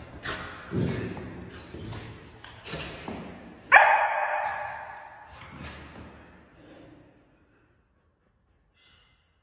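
A puppy and a tiger cub scuffling on a hard floor: thumps and short yelps, then about three and a half seconds in a single loud bark that echoes and dies away.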